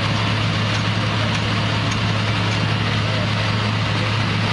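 Concrete mixer truck's diesel engine running steadily during a pour, with a constant low hum and a broad even rush over it.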